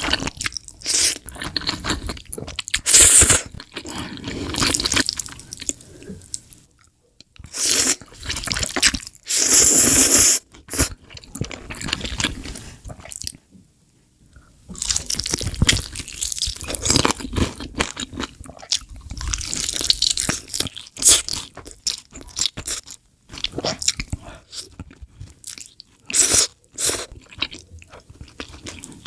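Close-miked eating: loud crunchy bites and chewing of crispy food, coming in bursts with brief pauses between mouthfuls.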